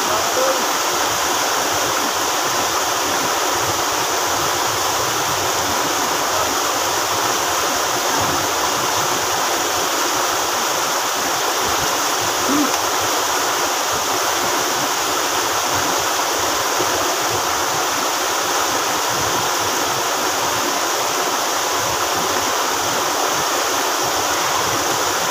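Fast stream rushing over boulders below a small waterfall: a steady, even rush of white water.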